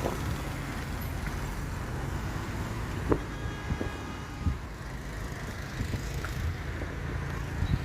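Steady low rumble of a motor vehicle's engine and road traffic, with a few sharp knocks about three seconds in.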